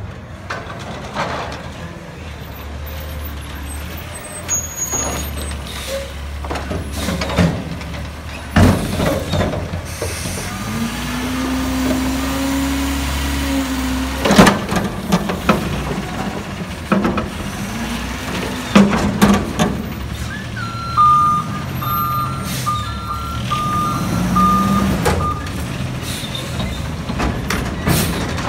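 McNeilus front-loader garbage truck at work: the diesel engine running and hissing its air brakes, then revving up and back down to drive the hydraulic arms that lift a dumpster over the cab. Several loud metal bangs come as the bin is emptied, and a string of reversing beeps sounds in the second half.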